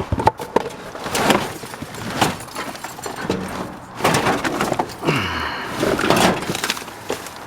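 Debris being rummaged and tossed about in a dumpster: repeated knocks, crashes and rattling of junk, with a short creaking scrape about five seconds in.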